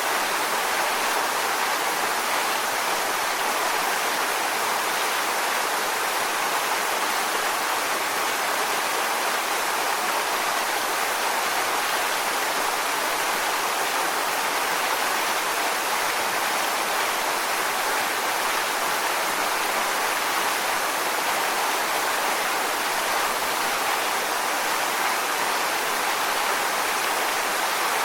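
Waterfall: water falling and splashing onto rocks in a steady, even rush with no breaks or changes.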